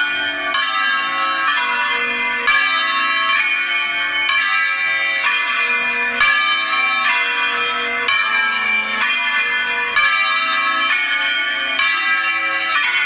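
Church bells of a six-bell ring in A-flat, hung in the Veronese style and swung by hand, ringing in sequence. A new stroke comes roughly every second, each ringing on into the next.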